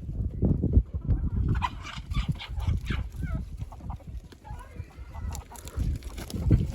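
Chickens clucking and squawking in a short flurry of calls between about one and four seconds in, with a steady low rumble on the microphone throughout.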